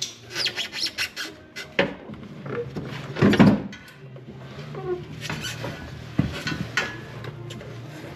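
Metal parts under a car clicking, knocking and scraping as a steering rack is pushed and worked loose, with one louder scrape about three seconds in.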